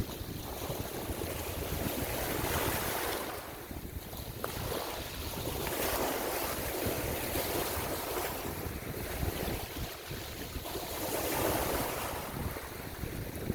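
Ocean surf washing in, swelling and easing every few seconds, with wind buffeting the microphone.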